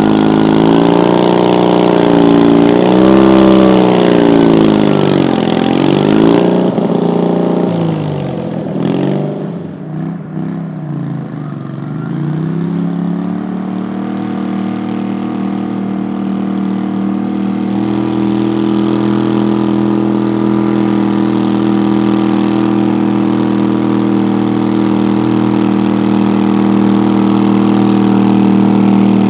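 Modified garden tractor engine at high revs pulling the weight sled, its pitch rising and falling and then dropping away about twelve seconds in. After that an engine runs steadily at idle, a little louder from about eighteen seconds in.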